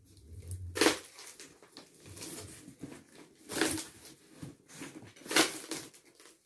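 Cardboard box flaps and stiff cardboard and paper packing sheets being handled. It is a soft rustling, with three louder scrapes: about a second in, in the middle, and near the end.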